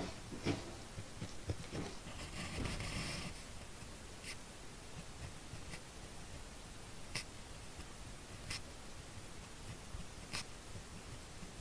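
M&G 0.28 mm fine-tip gel pen writing on smooth notebook paper: faint, steady scratching of the nib through the strokes, busier in the first few seconds, with about five sharp ticks spaced a second or two apart later on.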